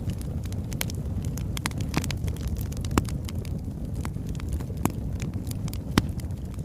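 Birch wood fire burning: a steady low rumble of flames with frequent sharp crackles and a few louder pops.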